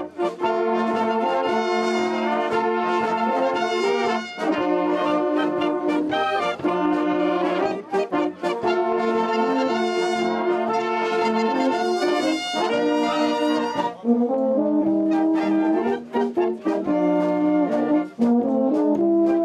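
A traditional Allgäu wind band (Blaskapelle) playing: clarinets, flutes, trumpets, tenor horns and tubas sounding together in held chords. About fourteen seconds in, the higher parts fall back and the low brass is heard more.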